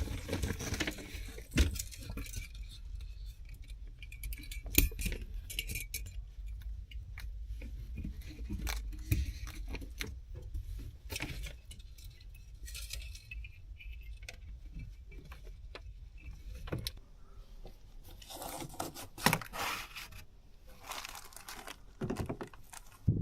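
Small hard objects, metal and glass, clinking and rattling irregularly as they are handled, over a steady low rumble.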